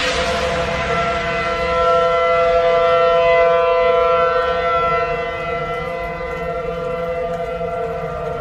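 Outdoor severe-weather warning siren sounding a steady chord of several tones. It swells louder about two seconds in and eases off again after about five seconds.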